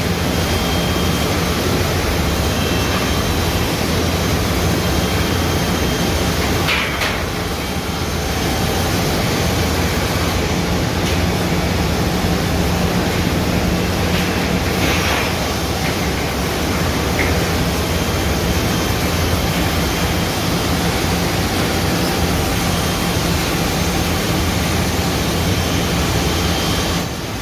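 Automatic CNC wood jigsaw (profile scroll-saw machine) running: a loud, steady mechanical noise with a low hum, broken by a few brief clicks about 7 and 15 seconds in.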